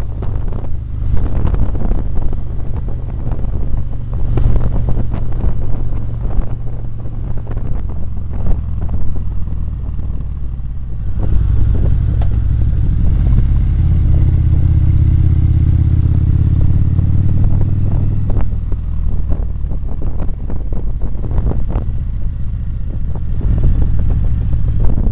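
Motorcycle engine running under way, with wind buffeting the microphone. For several seconds in the middle the wind drops and the engine's low note is steadier and clearer.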